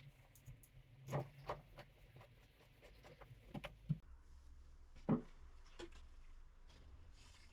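A handful of separate light knocks and clicks, the loudest about five seconds in, with a low steady hum coming in about four seconds in.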